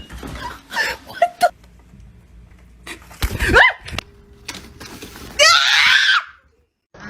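Short bursts of screaming and laughter, cut from clip to clip. The loudest is a shrill scream lasting under a second, about two-thirds of the way in, then a brief drop to silence.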